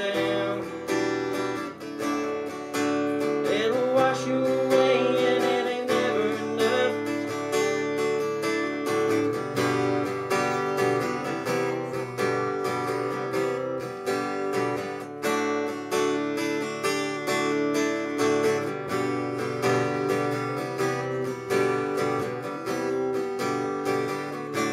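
Solo acoustic guitar strummed in a steady rhythm, chords ringing between the strokes: an instrumental passage of a country song.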